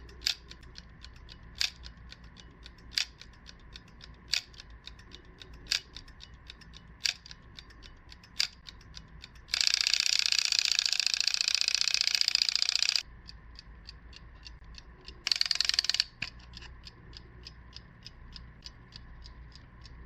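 Mechanical gradual-wake alarm clock: ticking while its hammer strikes the case once about every second and a half, seven single strokes. Then the bell rings continuously for about three and a half seconds, stops, and rings again briefly. The single strokes are meant to wake the sleeper gently before the full alarm.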